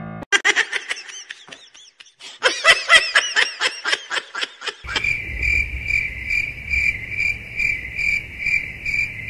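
Two runs of rapid, high chirps. Then, from about halfway, a steady chirping on one high note, pulsing about twice a second, with a low rumble under it.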